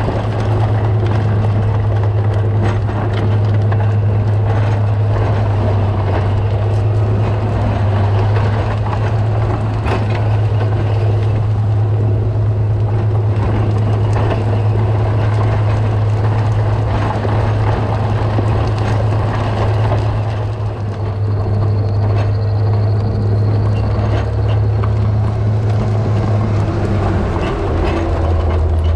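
Komatsu GD655 motor grader's diesel engine running steadily under load while grading a gravel road, with scattered clicks over it. The engine note drops slightly near the end.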